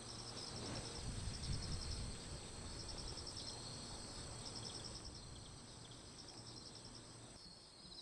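Insects chirping in short pulsed trills that repeat about every second and a half, over a steady high-pitched insect buzz. A soft low rustle comes in the first couple of seconds.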